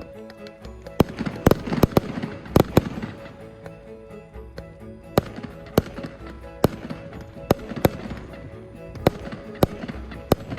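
Fireworks going off: sharp bangs at irregular intervals, thickest in the first three seconds, over steady background music.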